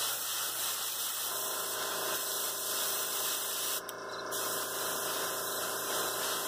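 Airbrush hissing steadily as it sprays a thin coat of paint, with a steady hum joining about a second in and the hiss briefly dropping out near the middle.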